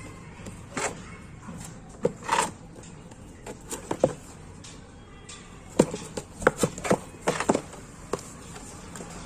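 Cardboard box being handled and turned over on a hard tiled floor: a string of short taps, knocks and brief scrapes, coming close together from about six to seven and a half seconds in.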